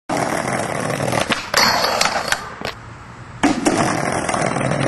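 Skateboard wheels rolling on pavement with several sharp clacks of the board, dropping away for a moment near the middle before loud rolling comes back.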